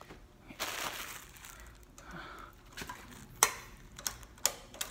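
Soft rustling and shuffling, then a few sharp clicks in the second half, the loudest about three and a half seconds in.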